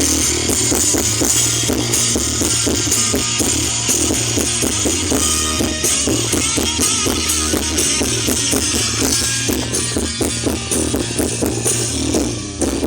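Music with drums and guitar playing loud through a car's aftermarket stereo and subwoofer, with heavy bass.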